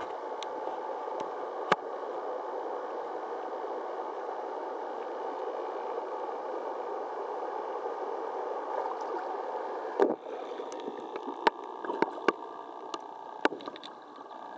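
Steady rushing of river water. A few seconds from the end, the noise drops a little and is broken by a string of sharp clicks and knocks.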